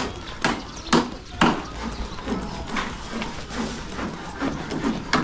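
Three sharp knocks about half a second apart within the first second and a half, with voices in the background.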